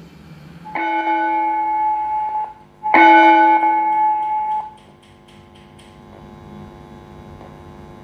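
Digicon DS-2025 digital school bell timer sounding an electronic bell tone through its amplifier speaker: two steady ringing tones, the second louder, each held for under two seconds, then fainter tones carry on.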